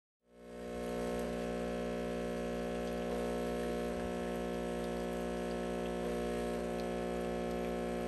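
De'Longhi Dinamica super-automatic espresso machine brewing coffee over ice: a steady mechanical hum from the machine that fades in just after the start and holds even.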